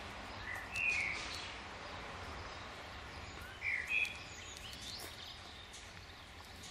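Birds chirping over a steady low background noise: short paired calls about a second in and again about four seconds in.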